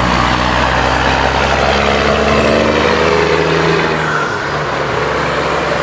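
Diesel semi truck pulling a dump trailer drives past, its engine running with a steady low drone.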